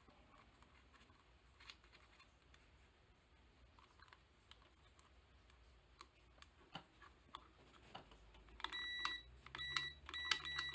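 Faint clicks of multimeter probe tips and wires being handled, then near the end an AstroAI DM6000AR multimeter's continuity beeper sounds four short, uneven beeps as its probes are touched to the cut-off saw's switch terminals: the beep signals an unbroken circuit through the repaired wiring.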